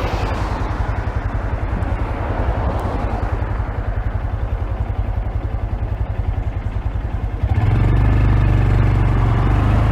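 Honda Grom's single-cylinder four-stroke engine running, a fast, even pulsing rumble, heard muffled through a phone in a pocket. About two-thirds of the way in, the low rumble abruptly gets louder.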